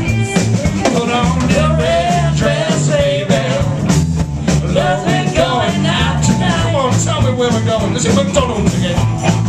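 Live blues band playing: electric guitars, bass and drums on a steady beat, with a bending lead melody over them.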